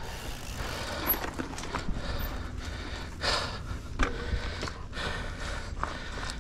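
Evil Wreckoning LS mountain bike rolling along a dirt trail: steady tyre and wind noise with scattered knocks and rattles from the bike.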